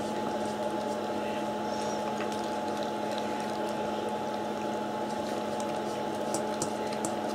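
A steady hum with a constant low tone and a higher middle tone. Near the end, a dog licking and nosing at a stainless steel bowl adds faint clicks.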